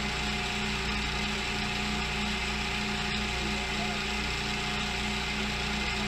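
A PM727M milling machine running steadily, a constant motor hum over an even mechanical hiss.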